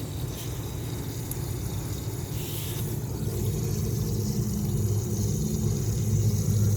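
A steady low mechanical rumble from a running motor, growing a little louder toward the end.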